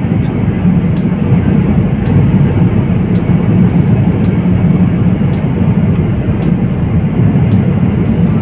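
Steady low drone of an airliner in flight, heard from inside the passenger cabin: engine and airflow noise.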